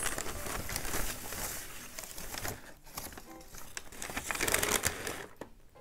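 Paper packing wrap crinkling and rustling as a plant is unwrapped from it. The rustle is loudest over the first two seconds, comes again in a short burst about four and a half seconds in, then dies away near the end.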